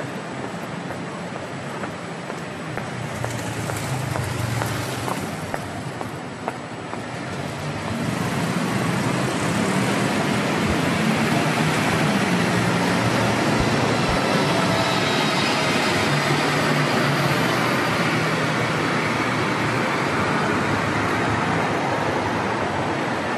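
Road traffic passing in the street, a steady rush of vehicle noise that swells about a third of the way in and stays loud, with faint whining engine tones on top.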